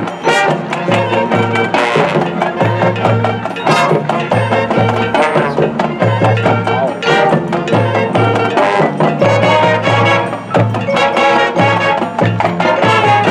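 Marching band playing its field show: brass over percussion, with a repeating low bass figure. The music cuts off right at the end.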